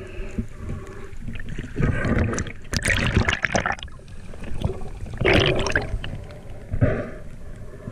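Muffled water sloshing and gurgling heard through a waterproof camera housing, in several louder surges lasting about a second each as the camera moves through the water and comes up to the surface.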